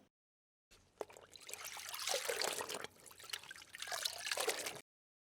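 A wet, crackly liquid sound in two passes of about a second and a half each, with a short break between them.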